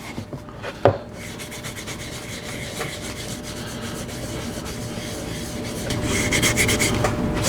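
Scotch-Brite pad scrubbing over the waxed wood of a turned bowl, rubbing off excess pigmented wax finish. There is a single knock about a second in, and the scrubbing grows louder near the end.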